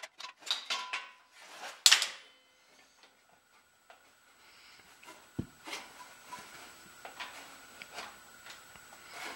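Metal hand tools clattering and clinking on a cluttered workbench as they are sorted through and picked up: a run of knocks in the first two seconds, the loudest near two seconds in, one low thump about five and a half seconds in, then scattered light clicks.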